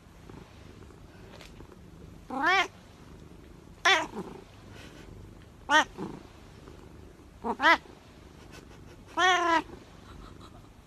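A domestic cat meowing five times, about every two seconds, each call arching up and down in pitch; the last call is the longest.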